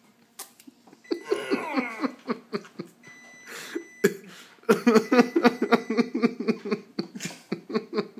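Wordless reactions to the sourness of a lemon slice: a drawn-out, wavering groan about a second in, a short hissing breath, then a long run of rhythmic laughter from about halfway.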